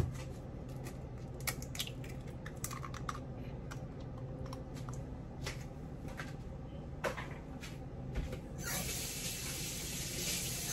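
Kitchen counter sounds off camera: scattered faint clicks and taps over a low steady hum, then a steady hiss for about the last two seconds.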